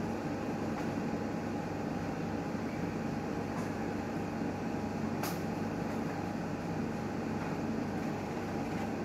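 Newmed Kronos S benchtop steam autoclave running, a steady mechanical hum with a constant low drone. A single sharp click sounds about five seconds in.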